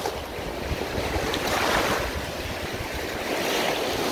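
Gulf of Mexico surf washing onto the beach, swelling about halfway through, with wind rumbling on the microphone.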